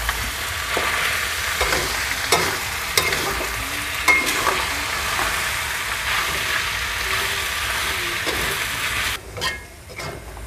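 Kikil (boiled beef trotter skin) and sliced green chillies sizzling in oil in a wok while being stir-fried, with a metal spatula scraping and clicking against the pan now and then. About nine seconds in the sizzling drops off sharply.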